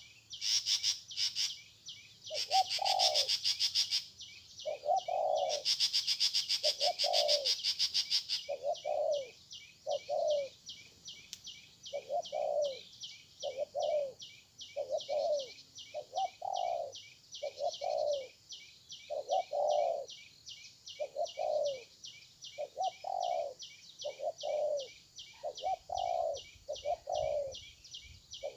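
Spotted dove cooing over and over, a low call about every second or so. A steady high rapid chirring runs behind it, louder in bursts during the first eight seconds.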